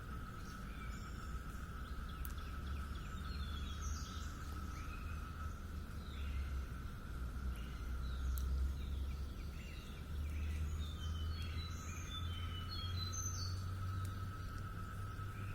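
Birds chirping, with many short, varied notes scattered throughout, over a steady high-pitched insect drone and a low hum.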